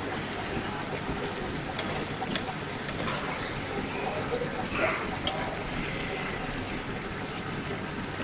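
Chicken in oily masala gravy sizzling and bubbling in a frying pan as it is fried down (bhuna), a steady hiss with a few light clicks.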